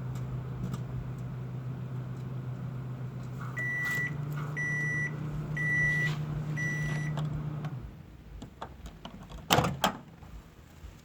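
Microwave oven running with a steady hum, then four beeps about a second apart. The hum stops, and a couple of sharp, loud clacks follow near the end.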